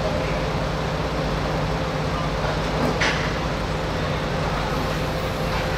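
A heavy vehicle's engine running steadily with a low, even hum, and a short hiss about three seconds in.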